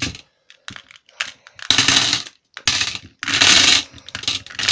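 Rattling and clattering of a mesh desk container and the things in it being handled right by the microphone: a few light clicks, then several loud bursts of clatter from about one and a half seconds in.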